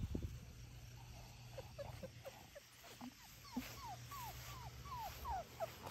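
Four-week-old Labrador puppy whimpering: a run of short, high whines, each falling in pitch, that starts about a second and a half in and comes faster and a little louder toward the end.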